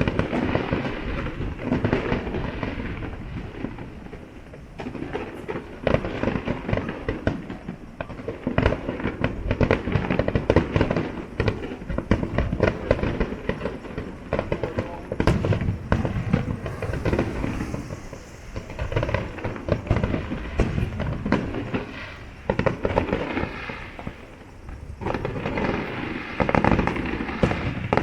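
A fireworks display going off in a dense, continuous barrage of bangs and crackles, swelling and easing in waves.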